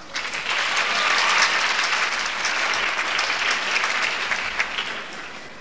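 Audience applauding: a dense patter of many hands clapping that starts all at once and dies away near the end.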